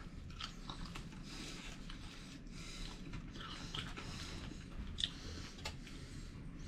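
Chewing and crunching a mouthful of crispy fried bluegill, close to the microphone, with a couple of sharper crunches about five seconds in.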